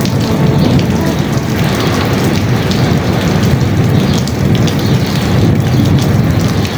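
Sea waves breaking and washing ashore, a continuous dense wash of surf with gentle swells in loudness.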